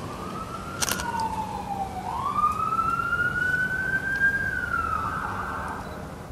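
A siren wailing, its pitch gliding slowly down, back up and down again over several seconds. A camera shutter clicks once about a second in.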